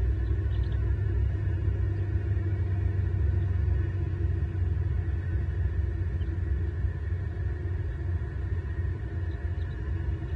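Steady low rumble of road traffic from cars passing on a multi-lane road.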